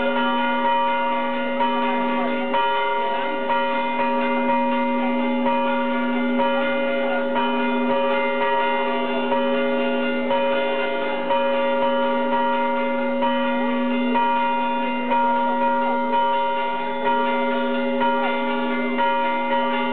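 Orthodox church bells being rung. Several bells of different pitches are struck in a repeating pattern, the strongest strokes coming about once a second, and their tones overlap and ring on.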